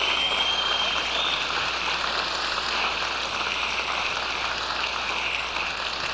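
Audience applauding, slowly tapering off, with a high whistle in the first second.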